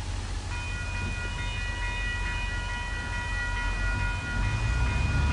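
VIA Rail passenger train 88, led by locomotive 6452, pulling in. A steady, high, several-note tone sets in about half a second in and holds. The train's low rumble grows louder near the end.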